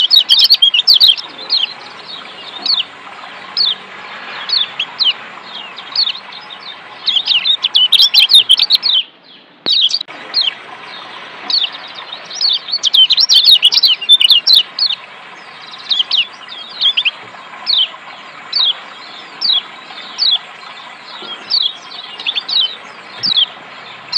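Kecial kuning (Lombok yellow white-eye, a Zosterops) calling with rapid, sharp high 'ciak' chirps, in dense flurries a few times and single notes between, over a steady rush of water. The water sound cuts out for about a second near the middle.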